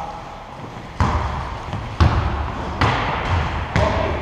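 A basketball being dribbled on the court floor: four bounces about a second apart.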